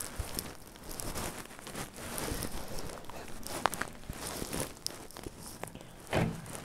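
Irregular rustling and light clicking handling noises, with a louder bump about six seconds in.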